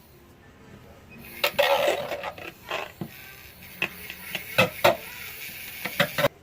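Handheld mini mixer running in a small container of soap batter, with several sharp knocks and clicks against the container. It cuts off abruptly near the end.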